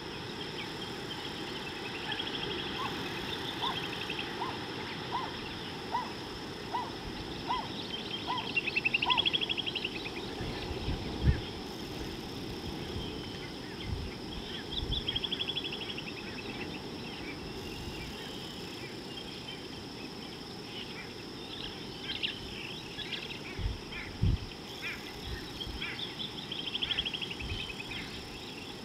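Wild birds calling outdoors: several buzzy trills and a run of about nine short, evenly spaced notes in the first nine seconds. Under them run a steady high insect drone and a constant low rumble, with a few low thumps.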